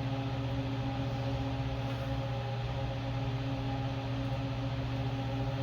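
A steady background machine hum made of several fixed tones.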